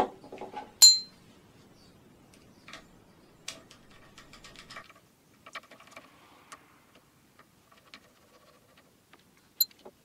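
Light clicks and taps of small steel screws, a threadlocker bottle and a Torx screwdriver being handled on a workbench. There are two sharp ringing metallic clinks, one about a second in and one near the end.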